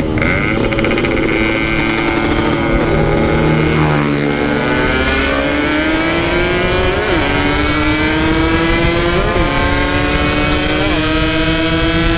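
Yamaha RX-King's two-stroke single-cylinder engine running at high revs under full throttle near top speed, its pitch dipping about four seconds in and then climbing slowly, with a few short blips later on.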